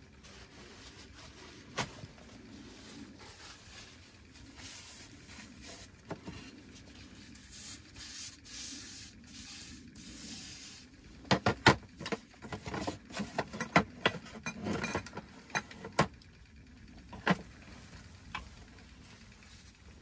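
Camp gear being handled by hand: soft rustling and scraping, then a quick run of sharp knocks and clicks a little past halfway, with a single click near the start and another near the end.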